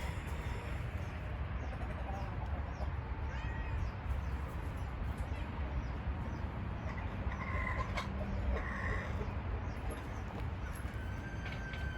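A few short animal calls, a couple of them about half a second long, over a steady low rumble, with a longer even call near the end.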